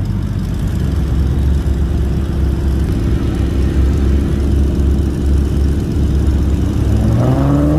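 Jeep Wrangler's engine running steadily under load as it crawls up a steep, slippery rock ledge: a low, even drone.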